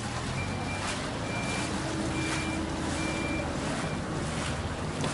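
A vehicle's reversing alarm beeping, one short high beep about every second, stopping about four seconds in, over the splashing of someone wading through deep floodwater.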